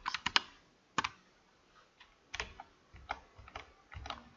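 Clicks of a computer mouse and keyboard: three quick clicks at the start, then single clicks spaced roughly half a second to a second apart.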